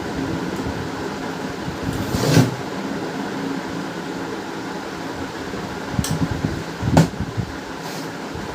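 Steady fan-like hum, with a couple of short knocks from printer parts being handled, about two and a half and seven seconds in.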